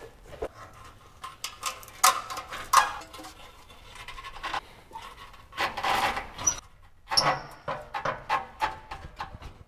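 Steel pry bar levering the exhaust pipe at the catalytic converter flange of a 2005 Nissan Xterra: scattered metal clicks, scrapes and knocks, with strained breathing from the effort.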